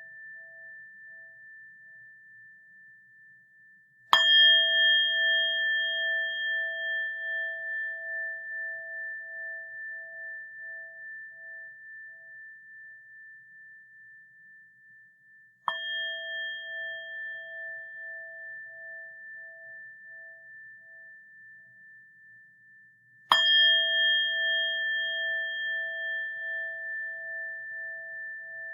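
A bell struck three times, about four seconds, sixteen seconds and twenty-three seconds in. Each strike rings on in a few clear pure tones that die away slowly, with a pulsing, wavering decay.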